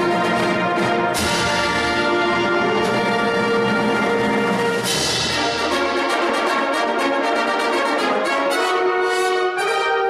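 Concert wind band playing a brass-heavy passage of sustained chords, with accented new chords about one and five seconds in. About six seconds in the low instruments drop out, and the upper winds and brass carry on in quicker notes.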